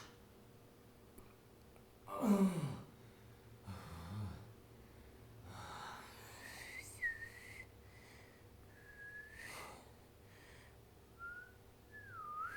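A man whistling a few slow, sliding notes in the second half, with a falling sigh and some breaths before it.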